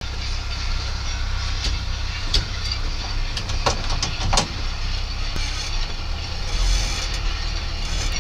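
1965 Chevy K10 pickup's engine running steadily, heard from inside the cab, with a few mechanical clicks and clunks around the middle as the driver works the column gear lever.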